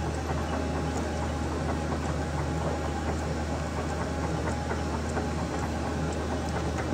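Sunfirm CHT 5680 CNC lathe's main spindle turning its large chuck slowly in low gear, a steady low mechanical hum with drive noise.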